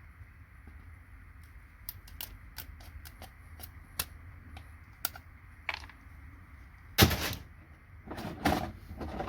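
Scattered small clicks and plastic clatter of circuit boards and IDE connectors being handled, with a loud knock about seven seconds in and a short rattling burst just after.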